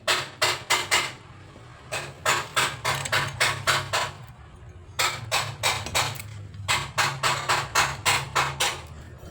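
Repeated sharp hammer taps, about four a second, in three runs with short pauses between them. A steady low hum runs underneath.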